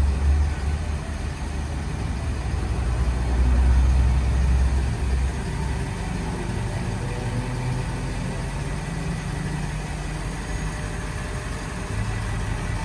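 A 2022 Ford F-550 work truck's engine idling as the truck rolls slowly forward, with a louder low rumble from about three to five seconds in.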